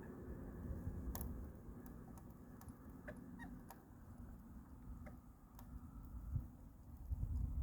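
Faint, scattered light clicks and taps, about a dozen at irregular spacing, over a low rumble.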